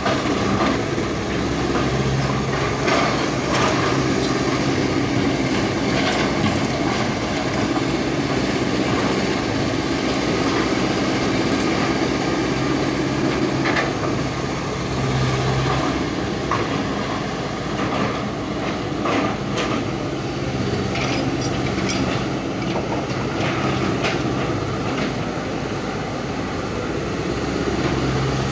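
Excavator's diesel engine running steadily, its pitch and strength shifting a little as the machine works, with scattered knocks and scrapes from the ripper bucket tearing into the ground.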